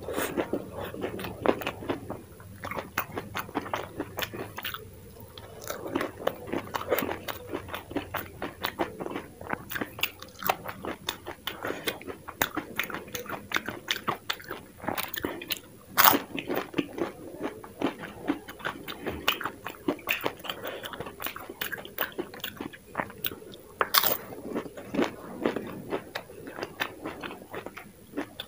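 Close-up crunching and chewing of dahi puri: crisp fried puri shells cracking between the teeth, mixed with wet chewing of the yogurt filling. Dense, irregular crackles run throughout, with a few sharper, louder crunches.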